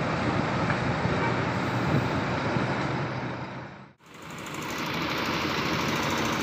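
Large coach bus engine running in a steady drone. About four seconds in, the sound fades briefly to near silence and then fades back in.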